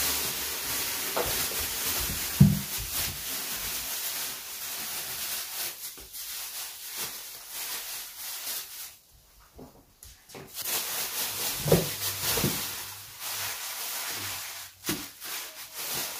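Water running and splashing while cow leg and pomo (cowhide) are washed by hand, with a few short low knocks. The water sound drops away for about a second in the middle.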